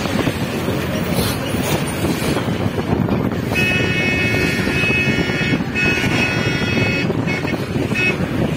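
A vehicle horn honking from about three and a half seconds in: one long blast of about two seconds, then several shorter ones, stopping shortly before the end. Underneath, steady wind rush and road noise from riding in a moving vehicle.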